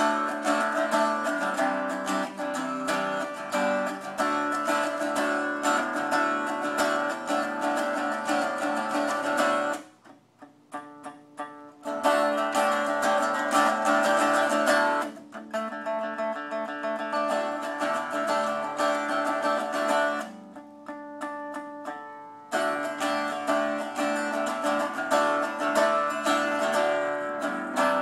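Copper-bodied electric guitar played unplugged, notes picked and strummed acoustically with short pauses about ten seconds in and again around twenty seconds in.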